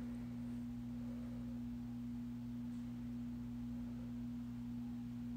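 A steady hum at one constant pitch over faint room noise.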